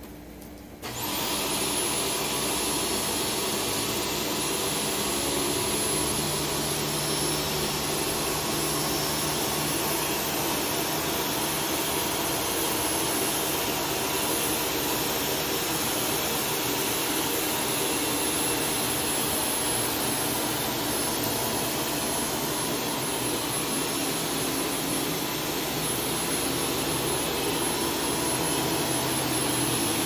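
Shark Stratos DuoClean PowerFins upright vacuum cleaner switched on about a second in. Its motor spins up to a high whine and then runs steadily on the high carpet setting while it vacuums shredded paper and potato flakes off the carpet.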